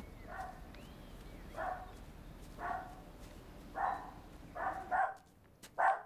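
Small dog barking repeatedly, about seven short barks that come closer together toward the end.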